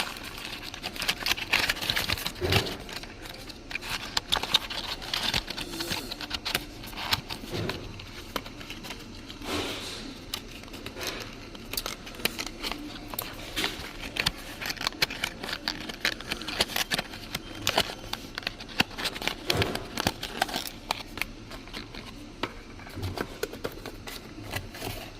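Irregular clicks, crinkles and rustles of cardboard and plastic packaging being handled as an earbuds box is unpacked.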